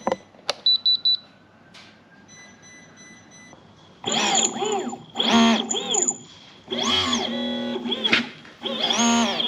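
ThrustMe Kicker electric outboard motors spinning up and back down several times under radio control as they are tested forwards and backwards, with a steady high whine from the speed controller. Two clicks and a quick string of electronic beeps come first.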